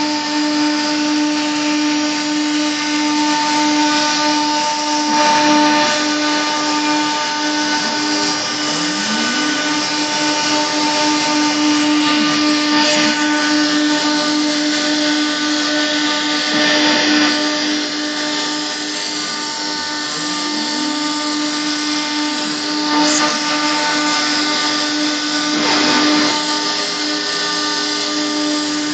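CNC router running, its spindle giving a steady whine with several pitched lines held throughout. A few short rising tones and brief noisy surges come and go over it.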